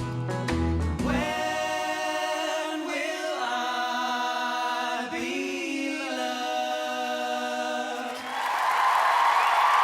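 Four men singing together in close harmony, a cappella once the low backing music drops out about a second in, holding long chords to the end of the song. Audience applause and cheering breaks out about eight seconds in.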